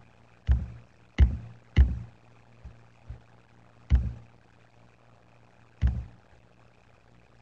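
A computer mouse clicking through the tutor's microphone: five sharp, irregularly spaced clicks and two fainter ones, over a steady low electrical hum.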